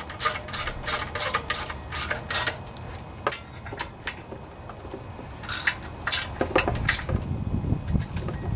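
Hand ratchet wrench clicking in a quick run of clicks, then a few scattered clicks, with a low rumble of handling in the last couple of seconds.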